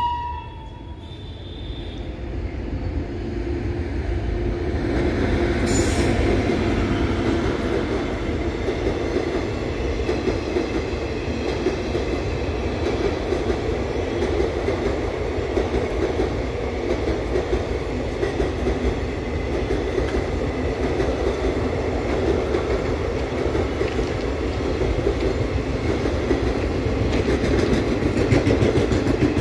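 Indian Railways Howrah–Kalka Mail passenger train of ICF coaches running past at speed, its wheels on the rails. The sound grows over the first five or six seconds as the train arrives, then holds as a steady rumble while the coaches go by.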